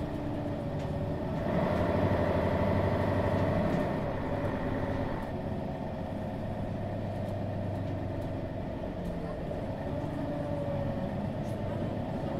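Daimler OM 457 hLA inline-six diesel engine of a Mercedes-Benz Citaro G articulated bus, running. It grows louder about a second and a half in, drops back about five seconds in, and then runs on steadily with slight rises and falls in pitch.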